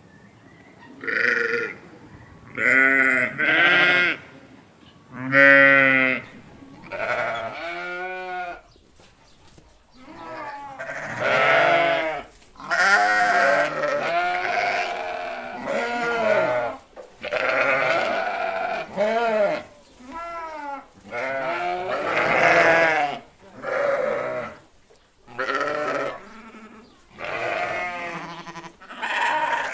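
Sheep and goats bleating: a long run of separate quavering calls of varying pitch, some short and some held for a second or two.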